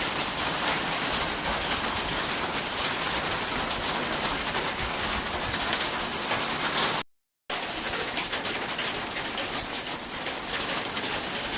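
Rain pattering steadily on a corrugated zinc roof, a dense hiss of many small drop ticks. The sound cuts out briefly about seven seconds in.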